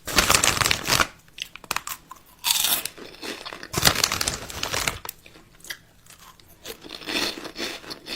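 Close-up crunching in irregular bursts, each up to about a second long, with quieter crackles between them.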